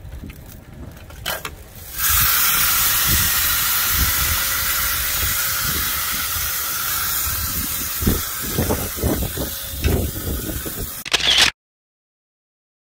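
A loud, steady hiss that starts abruptly about two seconds in and cuts off suddenly near the end, with a few low thumps in its last seconds.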